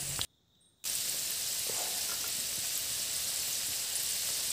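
Kachori deep-frying in hot oil in a kadai, a steady sizzle, broken by about half a second of silence shortly after the start.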